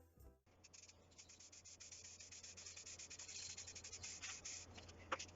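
Faint, rapid back-and-forth rubbing strokes of hand-sanding, with a steady low hum underneath.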